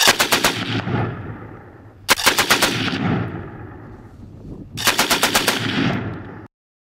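Three short bursts of machine gun fire, each of several rapid shots, with a long fading echo after each burst.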